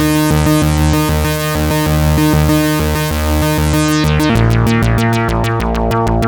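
Moog Source analog synthesizer playing a deep bass line under a brighter sustained part. About four seconds in, this changes to short repeated notes, each with a quick falling filter sweep.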